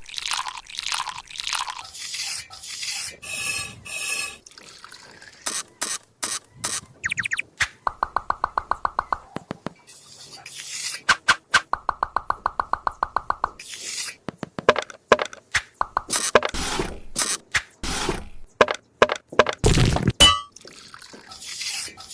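A string of short knocks, clicks and drip-like sounds, with two runs of rapid even clicking partway through and a dull thud near the end.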